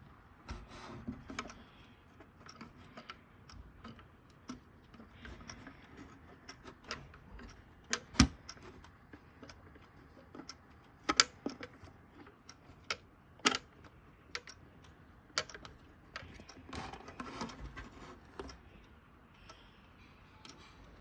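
Handling noise: scattered light clicks and knocks at irregular intervals, with a louder knock about 8 seconds in and others near 11 and 13 seconds.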